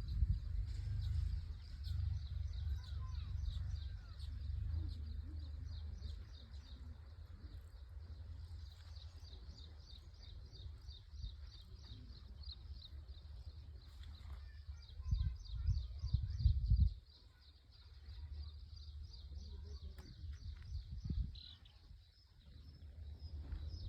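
Rapid, steady high-pitched chirping, several chirps a second, over a low rumble that grows louder in short stretches.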